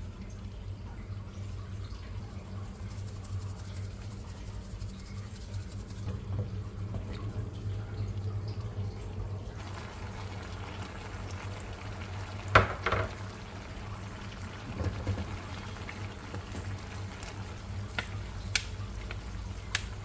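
Water running, over a steady low hum, with one sharp knock about halfway through and a few lighter clicks near the end.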